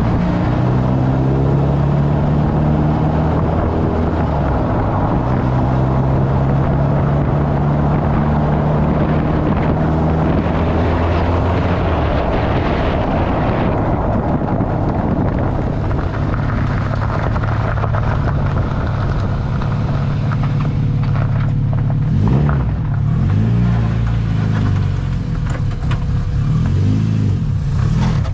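1995 Honda Civic driving on the road, heard from low beside the front wheel: a steady engine drone whose pitch shifts as the car changes speed, under tyre and wind rush. The rushing noise drops off about halfway through, and later the engine note rises and falls.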